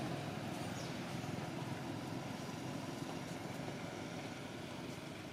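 Steady low background rumble that slowly fades, with no distinct calls standing out.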